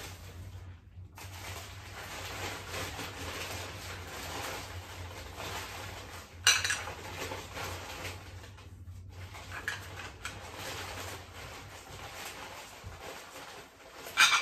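Newspaper wrapping rustling as china dishes are unpacked from a cardboard box, with a sharp clink of dishes knocking together about six seconds in and another near the end.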